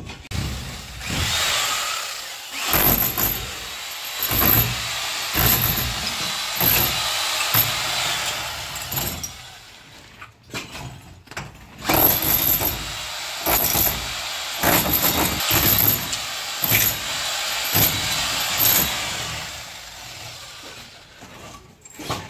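Corded hammer drill boring into a masonry block wall, running in repeated bursts with short pauses between them.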